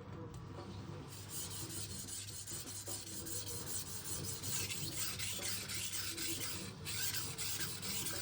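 Steel knife edge drawn back and forth across a Thleite 1000-grit vitrified diamond whetstone: a gritty scraping in repeated strokes that starts about a second in, as the edge is refined after a burr has been raised.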